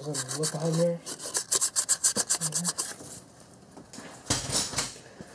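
Wet 1500-grit sandpaper rubbed over the engine's thermostat-housing hose sealing surface in quick short strokes, cleaning off hose rot. The rubbing stops about three seconds in, and a brief burst of noise follows near the end.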